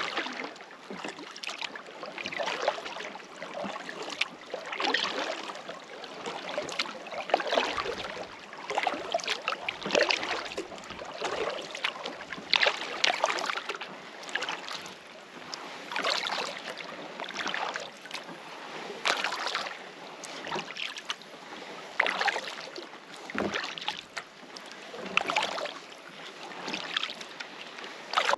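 Kayak paddle blades dipping and pulling through calm loch water, one splashing stroke about every second or so.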